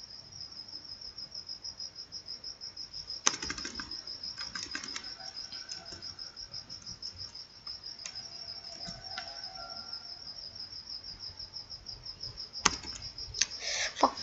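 A cricket chirping steadily in the background, a fast even high-pitched trill. A few sharp computer mouse clicks come in, one about three seconds in and several near the end.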